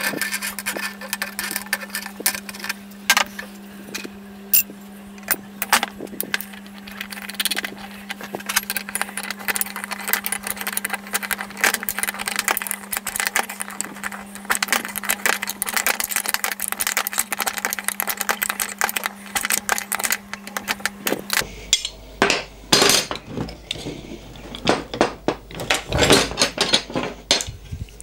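Hand tools working the steel bolts of a trailer jockey wheel's swivel clamp as they are tightened: rapid ratchet clicking through the middle, then louder, separate metal clinks of spanners on the bolts over the last several seconds. A steady low hum runs underneath until about three-quarters of the way through.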